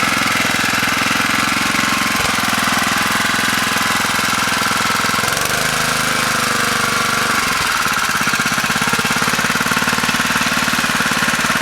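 Small petrol engine of a portable water pump running steadily at a fast firing rhythm while pumping out floodwater, its carburettor freshly cleaned so it runs properly. Its low note shifts for a couple of seconds around the middle.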